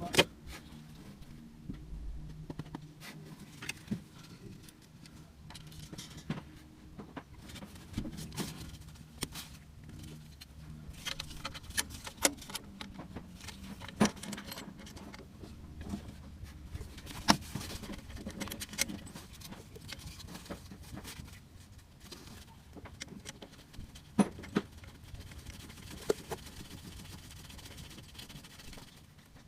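Scattered metallic clicks, clinks and knocks of hand tools and parts being handled while refitting pipework on a van engine. A faint low hum runs under them for about the first half.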